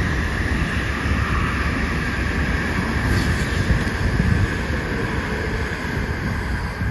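Tokaido Shinkansen bullet train passing close below at speed: a loud, steady rush of air and rolling wheels that begins to fade near the end as the last cars go by.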